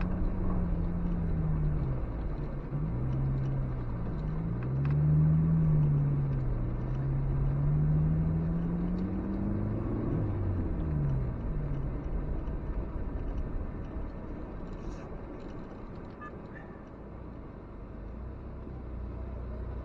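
Suzuki X-90's engine heard from inside the cabin while driving, its note rising and falling with several gear changes. For the last several seconds it drops to a quieter, steady low running as the car slows.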